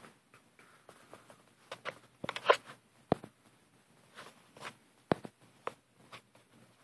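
Handling noise from a handheld camera being moved around: irregular rustles and sharp clicks, the loudest rustle about two and a half seconds in and sharp clicks a little after three and five seconds.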